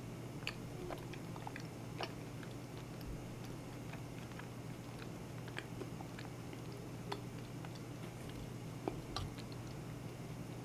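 Chewing and mouth sounds from eating thick corn and bean porridge, with scattered small sharp clicks, some from a metal spoon touching a ceramic bowl, over a faint steady low hum.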